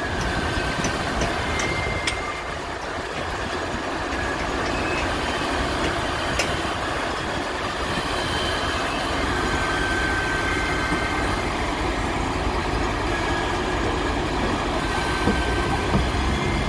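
Steady running of truck engines and a grain conveyor, with the constant rush of paddy rice pouring down a chute onto a heap in a cargo boat's hold.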